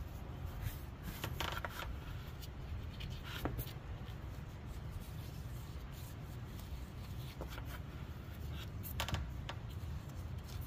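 Light handling noises: a new water pump turned over in gloved hands, with soft rustling and a few small clicks, one of them about a second and a half in, another near the end, over a steady low rumble.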